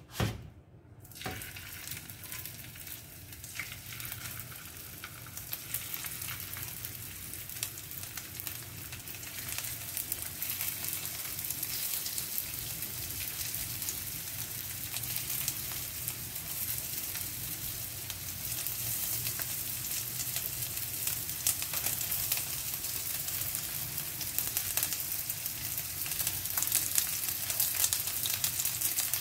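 A single knock just at the start as the frying pan is set on the burner, then cornstarch-coated chicken pieces sizzling and crackling in hot oil in the nonstick pan, the sizzle growing louder as more pieces are laid in.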